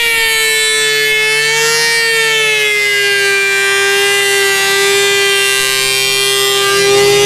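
Surface planer running with a loud, steady whine that sags slightly in pitch over the first few seconds and then holds.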